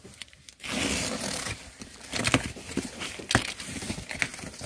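A box cutter slits the packing tape along a cardboard carton's seam in one rasping stroke about a second long. Cardboard flaps are then pulled open and rustled, with several sharp knocks and clicks.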